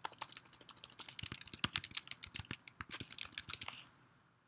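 Typing on a computer keyboard: a quick, uneven run of keystrokes that stops a little before four seconds in.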